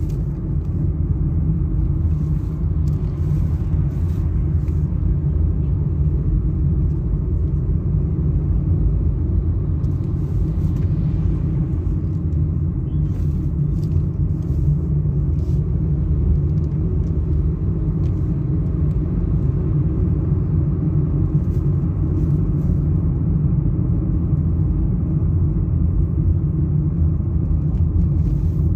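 Steady low rumble of a car in motion, heard from inside the cabin: road and engine noise.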